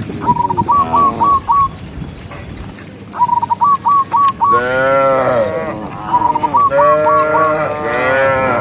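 Cattle mooing: long calls that rise and fall in pitch, two of them in the second half. Under them, a run of about five short high chirps repeats every few seconds.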